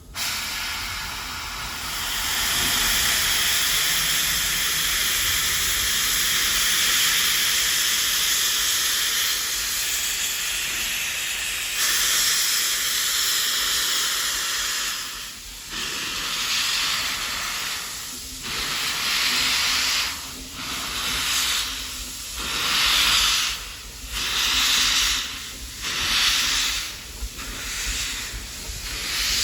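Steam locomotive venting a loud, steady hiss of steam that starts abruptly. About halfway through the hiss turns into even puffs roughly once a second, like exhaust beats as the engine gets under way. No whistle is sounding.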